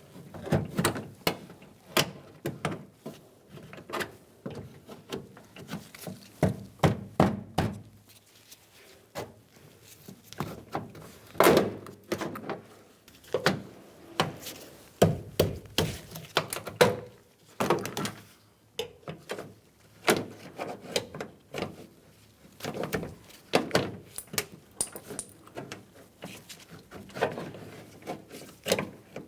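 A plastic trim tool prying tough push-pin retainer grommets out of a van's cargo-door trim panel: a long run of irregular clicks, knocks and thunks against the door.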